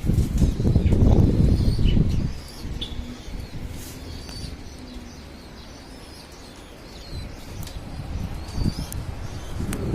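A loud rush of low noise for about the first two seconds, then rock pigeons cooing softly in low held notes. Short, high chirps from small birds are heard throughout.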